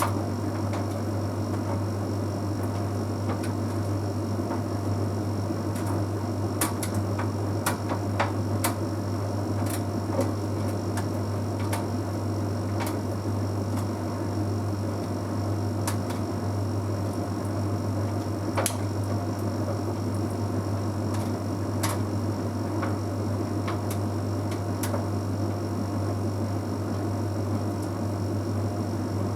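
Bosch Series 6 heat pump tumble dryer running mid-way through a drying cycle. A steady low hum and the rush of the turning drum carry under scattered, irregular light clicks.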